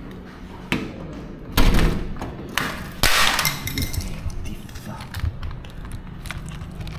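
Key working a door lock, then the door knocking and rattling as it is unlocked and pushed open. A hard thump comes about one and a half seconds in and a longer rattle near the middle, with small clicks of the latch after it.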